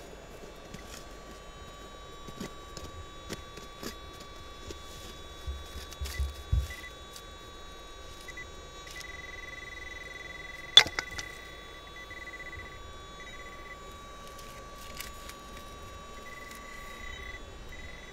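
A hand digging pick scraping into gravel and knocking on rock, in scattered strokes, with one sharp, loud metallic strike a little past the middle. A steady high tone runs underneath, joined in the second half by a higher tone that cuts in and out.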